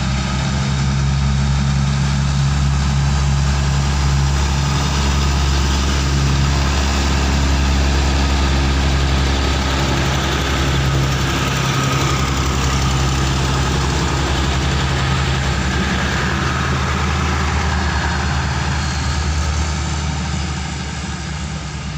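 Diesel multiple-unit railcar train running on its engines as it passes and pulls away: a steady low diesel drone with rail noise, easing off slightly near the end.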